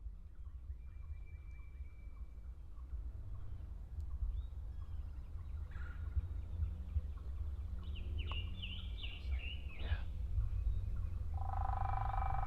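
A wild turkey gobbler gobbles once near the end, over scattered songbird chirps and a steady low wind rumble on the microphone.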